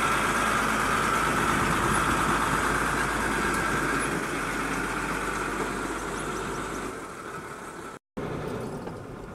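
Isuzu truck's diesel engine running as the truck pulls past and moves away, slowly fading. About eight seconds in it breaks off and is replaced by quieter engine running heard from inside the cab.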